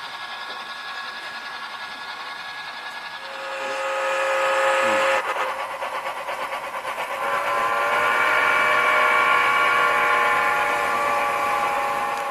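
Recorded steam-whistle sound from a model railway steam locomotive: a fainter multi-note whistle at first, a louder blast about three seconds in that drops in pitch as it ends, then a long, steady, loud chime whistle from about seven seconds on.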